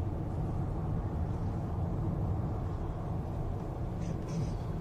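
Steady low rumble of road and engine noise inside a moving car's cabin while cruising on a highway.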